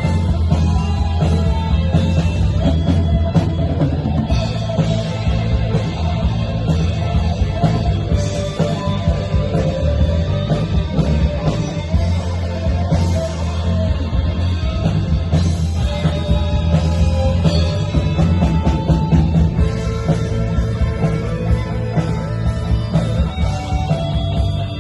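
Rock music playing steadily, heavy in the low end.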